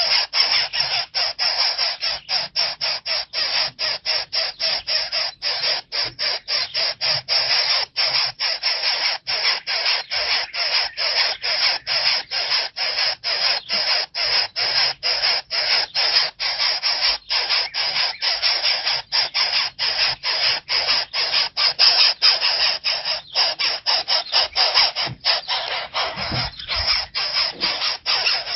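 Nestling birds calling nonstop with harsh, rasping calls, about two to three a second, typical of chicks begging at the nest.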